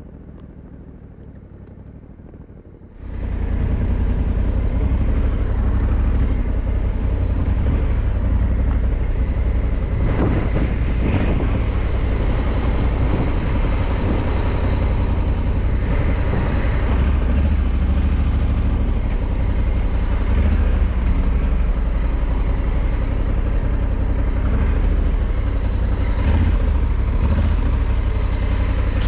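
Honda Africa Twin 1100 DCT's parallel-twin engine running on the move. It is quieter for about the first three seconds, then abruptly much louder, with a heavy low rumble and dense noise.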